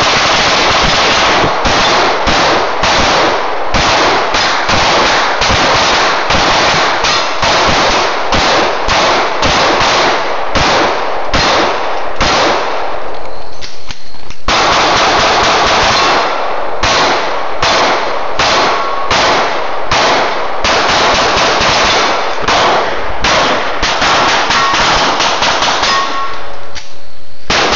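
Several pistols firing at once in rapid, overlapping shots, several a second, with a short lull about halfway through. Some hits on the steel targets ring out with a brief clang.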